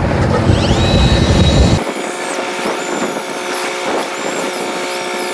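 Small electric motor whining, rising in pitch and then holding and wavering, like an electric fishing reel winding in a line, over a boat engine's steady running. The low engine rumble drops away abruptly about two seconds in.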